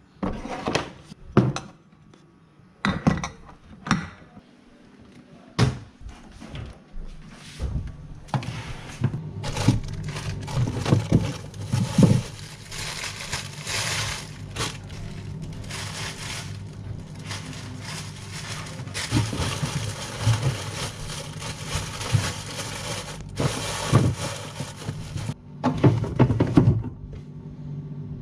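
Groceries being put away: glass sauce bottles knocked and set down on a cabinet shelf, a few sharp clinks and knocks in the first seconds, then a plastic carrier bag rustling and crinkling as vegetables are unpacked into a refrigerator, over a steady low hum.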